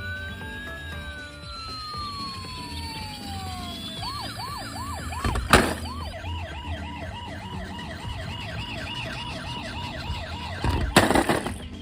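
Toy vehicle's electronic siren: a tone gliding down, then a fast repeating wail. Two loud short clattering noises come a little over five seconds in and again near the end.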